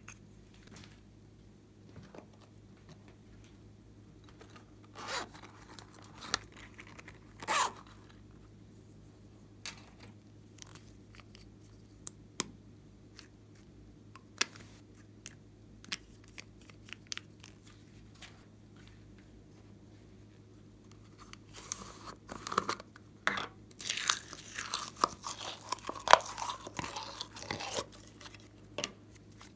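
Scattered small clicks and taps of lipstick and makeup tubes being uncapped and handled, then, about two-thirds of the way through, a dense stretch of crackling and squishing as a handful of glitter slime is squeezed.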